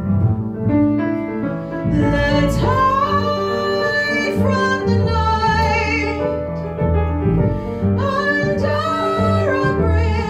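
A woman singing with piano accompaniment. The piano plays alone at first, and her voice comes in about two seconds in with long held notes and vibrato.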